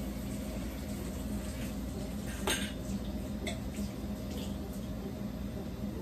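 Kitchen clatter of things handled on a counter: one sharp knock about two and a half seconds in and a few lighter clicks after it, over a steady low hum.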